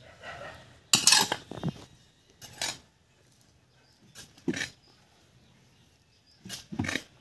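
A hand tool scraping up loose potting soil from a concrete floor and tossing it back onto the pile, in several separate strokes a second or two apart, the loudest about a second in: old potting soil being mixed through with added fertiliser.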